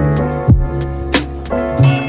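Music with a steady beat: sustained instrumental notes over a bass line, with a drum hit about every half second.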